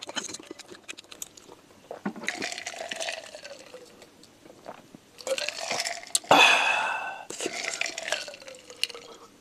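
A run of small wet clicks at the start, then a man drinking a milky iced drink from a large glass jar in long, noisy gulps close to the microphone, with one louder burst about six seconds in.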